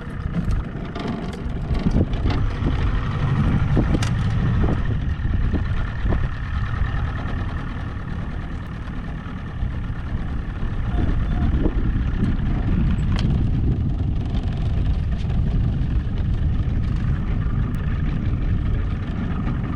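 A fishing boat's outboard motor running with the boat under way, a continuous low rumble that eases a little around the middle and picks up again after about ten seconds.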